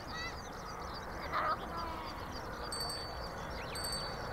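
Many small bird chirps and twitters, with two brief high whistled notes in the second half, over a low steady rumble.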